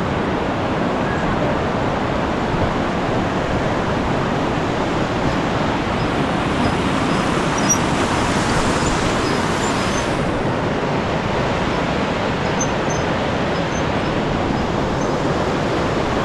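A fast-flowing river rushing steadily, a loud continuous wash of water noise.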